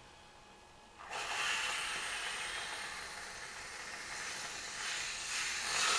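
Aerosol whipped-cream can spraying cream out of its nozzle while held upside down: a continuous hiss that starts about a second in and grows a little louder near the end.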